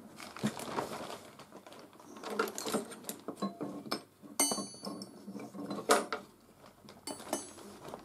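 Irregular clatter of hard objects being handled, clinking and knocking, with one ringing metallic clink about four and a half seconds in and a sharp knock about six seconds in.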